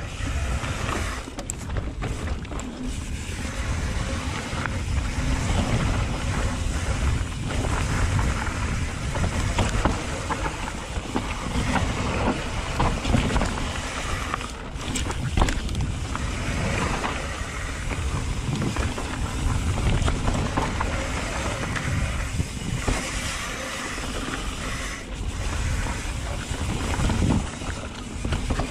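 Wind rushing over the camera microphone and mountain bike tyres rolling fast over a dirt trail, with a few sharp knocks and rattles from the bike over bumps.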